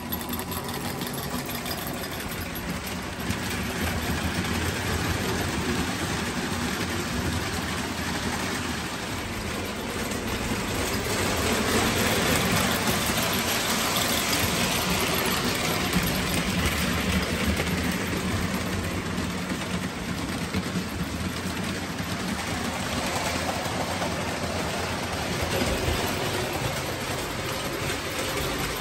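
Lionel 671 model locomotive running on three-rail tinplate track under power, pulling a heavy string of cars on its first run after rewiring: a steady motor hum and wheel rumble. It grows louder for several seconds in the middle as the train comes close, then eases off.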